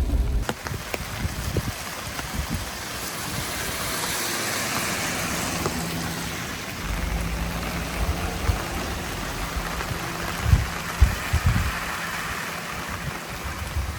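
Rain and wet-road hiss from a Maruti Suzuki Jimny 4x4 driving in heavy monsoon rain, with a faint steady engine hum. A few low thumps come about ten to eleven seconds in.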